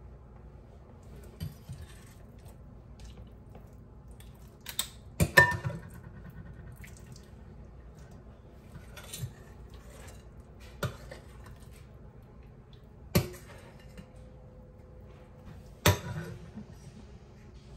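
Kitchen dishes and utensils knocking and clinking: about half a dozen separate sharp knocks spread out, the loudest pair about five seconds in with a brief ring after it.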